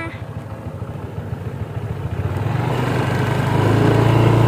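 Motorcycle engine running at low speed. It grows louder and steadier about halfway through.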